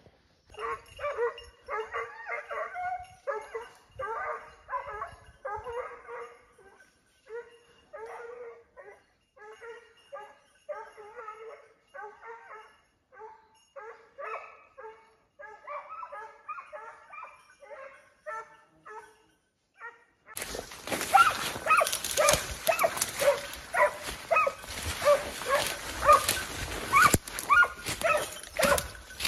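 Hunting dogs baying and yelping in rapid, repeated barks, typical of hounds giving tongue on a wild boar's trail. About two-thirds of the way through the sound changes abruptly: the barking becomes louder over a rushing noise.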